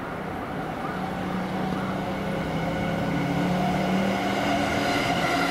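Approaching EF65 electric locomotive hauling a delivery of Seibu 40000 series cars: a steady hum made of several held tones that grows gradually louder.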